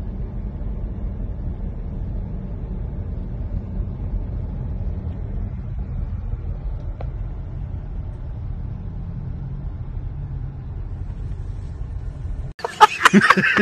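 Steady low rumble of a car on the move, heard from inside its cabin: road and engine noise. It cuts off suddenly near the end.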